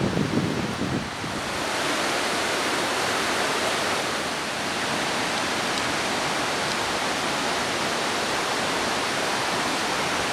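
Steady rush of a fast-flowing mountain stream over rapids, continuous and even after a few uneven bumps in the first second.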